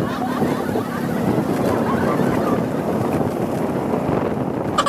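Steady rushing wind noise on the microphone, with a faint low hum underneath and a sharp click near the end.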